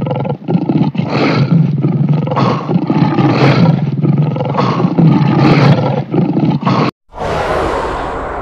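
Lions roaring, several rough roars swelling and overlapping one after another. The roaring cuts off abruptly near the end, and a noisy rumbling whoosh starts up.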